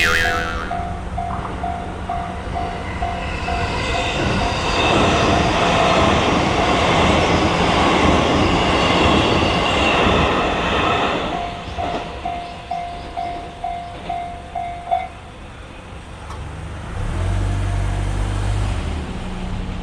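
Japanese railroad crossing alarm ringing in a steady, quick repeated ding while an electric train passes over the crossing with rumbling wheels and clickety-clack for about seven seconds. The bell keeps ringing after the train and stops about fifteen seconds in, followed by a low rumble near the end.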